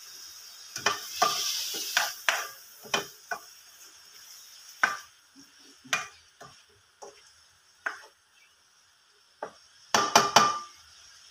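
Spatula stirring squid rings in a stone-coated wok, scraping and knocking against the pan in irregular strokes, with a light sizzle of the frying squid. A quick run of scrapes comes near the end.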